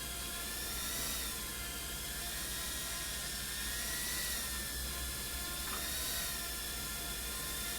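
FPV drone's electric motors and propellers whining steadily, the pitch drifting gently up and down as the throttle changes.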